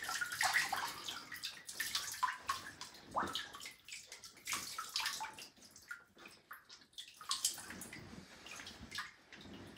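Water dripping and splashing into a bathtub from a wet puppy's coat and paws as the water is squeezed out of her fur, in irregular small drips and splashes.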